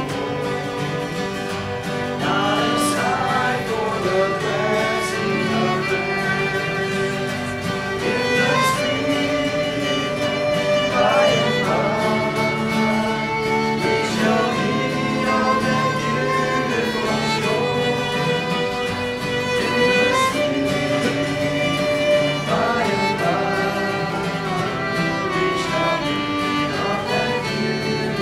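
Live acoustic string-band music: a fiddle bowing over two acoustic guitars strummed in a steady rhythm.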